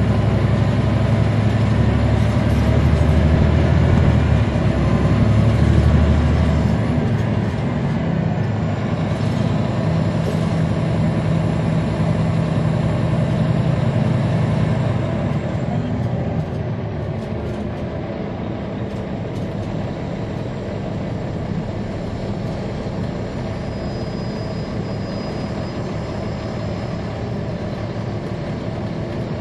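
Caterpillar C13 ACERT diesel engine of a NABI 416 transit bus heard from on board, running hard with a deep drone that changes pitch a few times. About halfway through, the engine drops back and the sound settles to a quieter, steady run.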